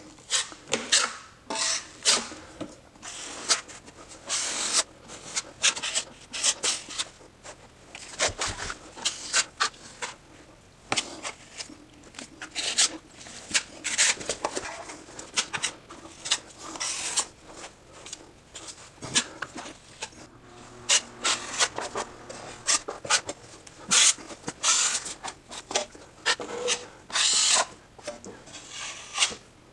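Steel drywall taping knife scraping and smoothing joint compound over a drywall patch, in many short, irregular strokes.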